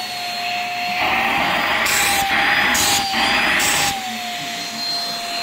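Vacuum cleaner running, its wand nozzle drawn over a bulldog's coat to suck up shed hair: a steady motor whine that wavers slightly in pitch over a rushing hiss. The airflow grows louder for a few seconds in the middle, with three short hissing surges.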